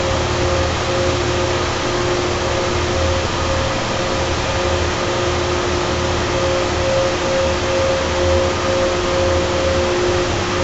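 Carrier 30HX screw-compressor chiller running steadily: an even hiss and low hum with two steady whining tones from the screw compressors.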